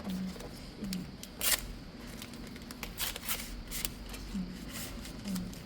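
Small handling noises as adhesive acupoint patches are peeled and pressed on: a few sharp clicks and crinkling rustles, the loudest about a second and a half in, with more between three and four seconds.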